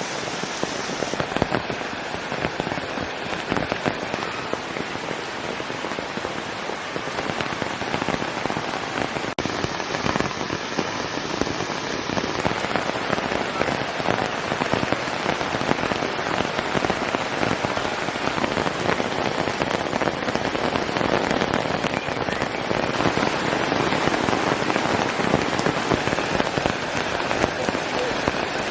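Steady rain falling, a dense patter of drops, growing a little louder about two-thirds of the way through.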